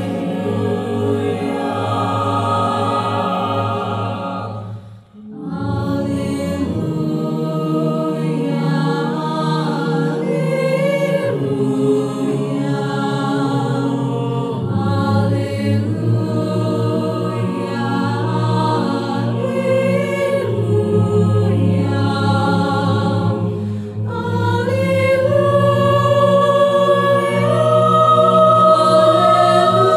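Mixed choir of men's and women's voices singing sustained chords in several parts. The voices break off briefly about five seconds in, then come back, and grow louder near the end.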